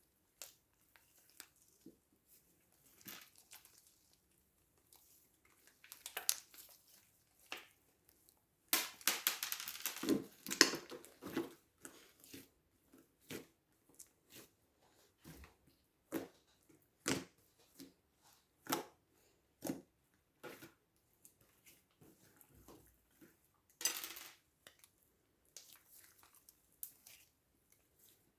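Slime being squished and worked by hand: scattered sharp clicks and pops, with a dense stretch of crackling about a third of the way in and another short burst near the end.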